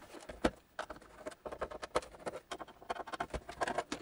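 Irregular light clicks and knocks of a Lambda 8300 home computer's plastic case being turned over and handled on the bench.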